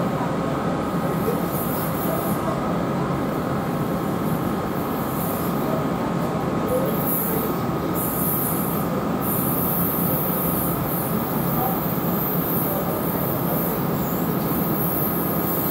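Electric passenger train moving along the track, a steady rumble of wheels on rail with a thin steady squeal above it.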